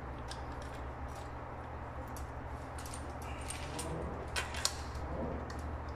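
Light metallic clicks and taps of a hand tool working at the metal top fitting of a high-voltage cable termination, over a steady low hum. The loudest two clicks come about four and a half seconds in.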